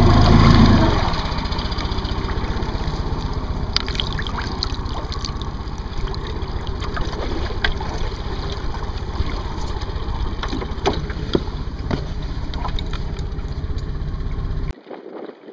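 Small boat's outboard motor idling steadily, with small splashes and drips of water as a dead duck is lifted out of the water. The motor sound cuts off suddenly near the end.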